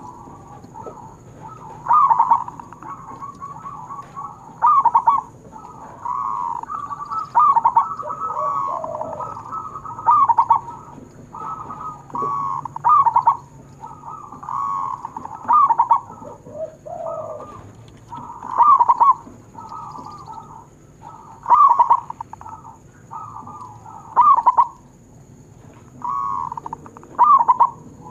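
Zebra doves (perkutut) cooing: loud staccato coo phrases repeat every two to three seconds, with softer rolling coos in between, and a lower call cuts in twice.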